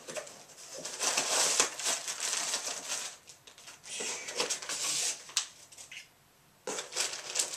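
Packaging rustling and crinkling as it is handled, in stretches with short pauses and a brief near-silent gap about six seconds in. The crinkle fits soft-plastic fishing bait packs being pulled from the order and sorted.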